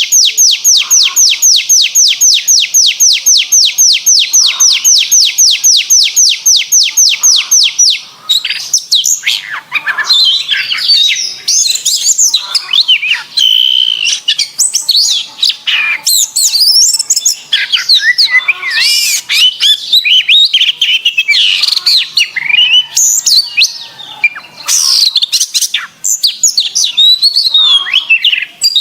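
Canary singing: a fast, even trill of about five notes a second, then, from about eight seconds in, a varied, rapid warbling song with whistles and chatter.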